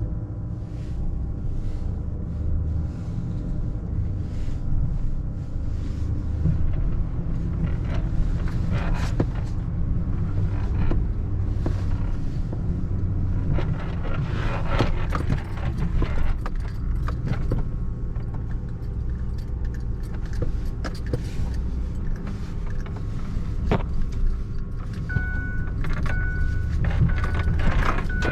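Vehicle running with a steady low rumble, with scattered clicks and rattles; from near the end, a beep repeats about once a second.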